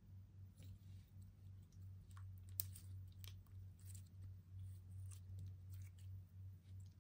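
Faint clicking and crinkling of toy packaging being handled and opened, with one sharper click about two and a half seconds in, over a low steady hum.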